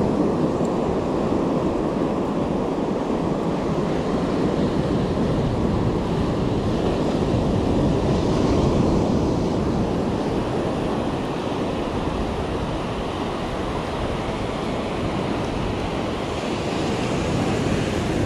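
Ocean surf washing up the sand, a steady rushing noise, with wind buffeting the microphone.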